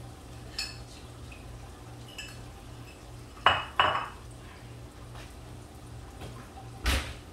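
Metal kitchen utensil clinking against a baking pan and plate as oven-baked bacon is moved. A few light clinks, then two sharp clatters about three and a half seconds in, and a heavy knock near the end.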